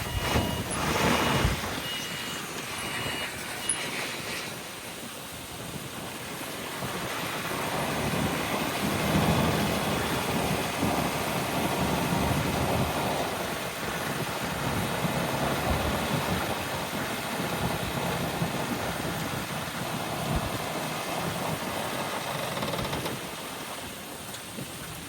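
A vehicle's reversing beeper sounds over running diesel machinery for the first few seconds. Then a heavy diesel engine of the earthmoving plant runs under load, growing louder about eight seconds in and holding steady.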